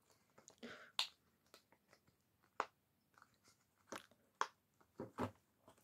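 Faint, scattered clicks and taps, about a dozen over several seconds, from small fidget toys being handled.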